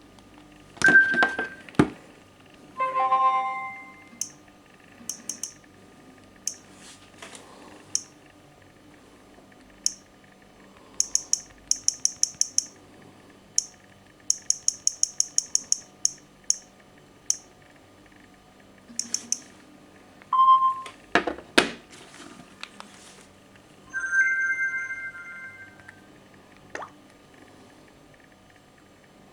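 Samsung Galaxy smartphone interface sounds: runs of quick touch-tap clicks, several short electronic tones (a falling three-note chime, a single beep, a brief held chord), and a few knocks of the phones being handled.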